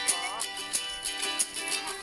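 Background music: a light plucked-string tune with a steady beat.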